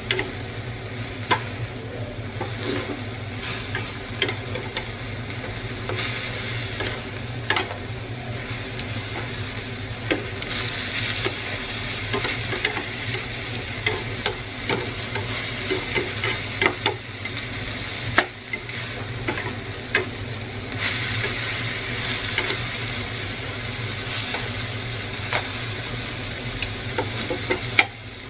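Buffalo meat and water spinach sizzling as they are stir-fried in a metal frying pan, with frequent taps and scrapes of chopsticks against the pan. The sizzle swells about ten seconds in and again about twenty seconds in.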